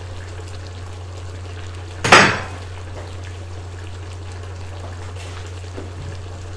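One sharp clatter of metal kitchenware about two seconds in, with a brief ring, over a steady low hum.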